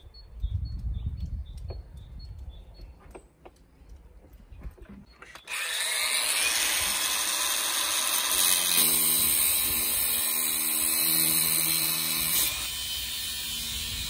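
A few knocks and clicks, then about five and a half seconds in a power tool starts abruptly and runs loud and steady with a hissing whine. Near the end it drops to a lower, steady level.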